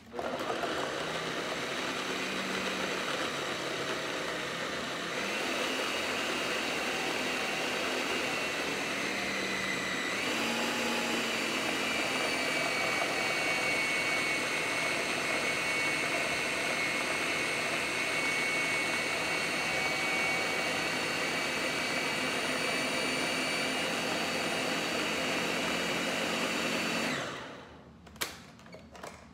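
Countertop blender running, pureeing peeled boiled potatoes. The motor's pitch steps up twice, about five and ten seconds in, then it winds down near the end, followed by a single click.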